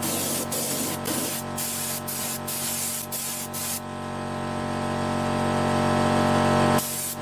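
Spray paint hissing onto a steel mower deck shell. It comes first as a string of short bursts with brief breaks, then as one long continuous spray from about four seconds in, with a short pause near the end.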